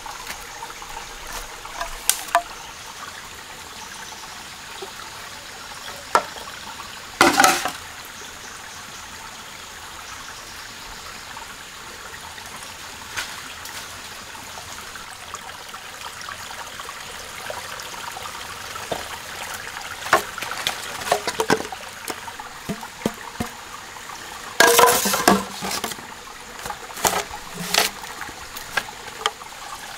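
A stream running steadily, with intermittent knocks and crackles as green bamboo tubes and leaves are handled; the loudest come about a quarter of the way in and again near the end.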